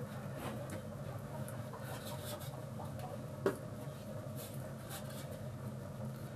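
Hands kneading bread dough in an aluminium basin: soft rubbing and patting of dough and flour, with one sharp knock about halfway through.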